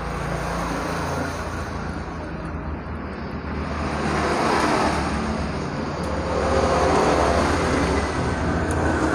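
Road traffic passing close by: a steady low engine-and-tyre noise that swells louder as vehicles go past, about four seconds in and again around seven seconds.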